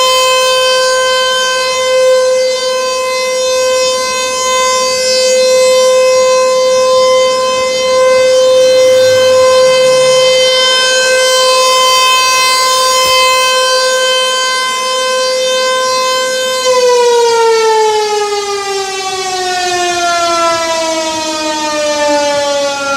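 ASC T-128 electromechanical outdoor warning siren sounding its test signal: a loud, steady single tone, then, about 17 seconds in, winding down with its pitch falling steadily.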